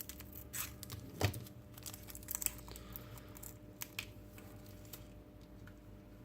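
Small plastic packet of screws crinkling as it is handled and torn open, with scattered light clicks and one louder knock about a second in.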